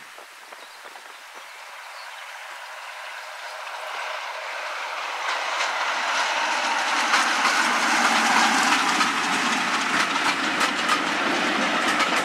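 Class 33 diesel locomotive hauling passenger coaches, its engine and wheel noise growing steadily louder as it approaches and passes close by. From about halfway through the coaches' wheels clatter with sharp clicks over the rail joints.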